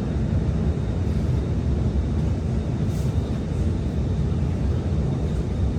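Steady low rumble and hum inside an SMRT R151 metro train car, with a faint thin high tone running through it and a brief hiss about three seconds in.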